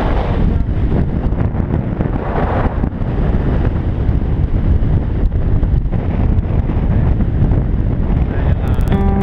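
Wind buffeting the microphone of a bike-mounted action camera on a mountain bike riding a snowy trail, a loud, steady rumble. Music starts right at the end.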